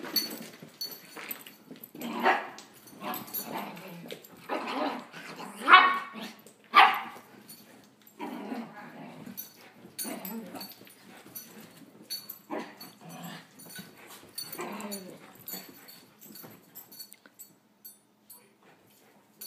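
Dogs barking in play, short barks about once a second, the loudest around six to seven seconds in. The barking thins out near the end.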